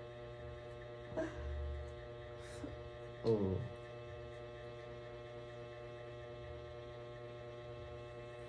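Steady electrical hum made of many even tones, with a brief falling voice sound about three seconds in.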